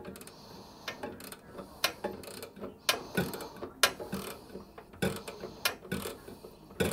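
A T20 Torx screwdriver turning out a screw that holds a microwave's magnetron, giving irregular sharp clicks, about two or three a second.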